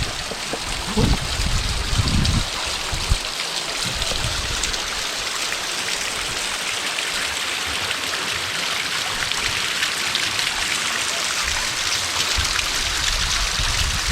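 Small waterfall splashing into a stream: a steady rush of falling water, with a couple of low thumps about one and two seconds in.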